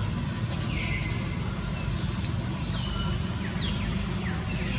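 Repeated high whistled bird calls, each a quick downward slide settling into a held note, over a steady low rumble.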